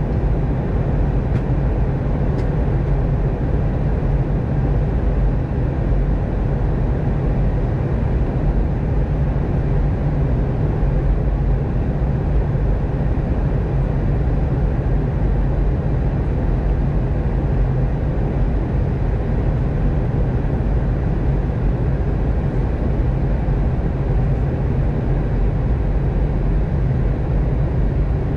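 Steady cabin noise of an Airbus A320 airliner in descent: engine and airflow noise heard inside the cabin, a low, even sound that holds unchanged throughout.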